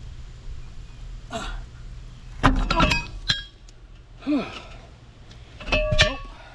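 Pipe wrench and socket clanking with metallic ringing in two bursts, one about two and a half seconds in and one about six seconds in, as the wrench fails to turn a seized nut. A short grunt of effort falls between them.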